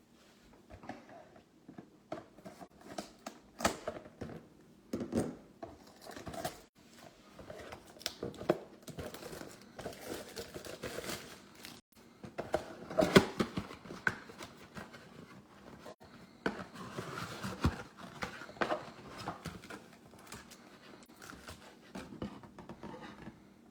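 Packaging crinkling and tearing, with irregular small clicks and taps, as a trading-card hobby box is unwrapped and its packs handled.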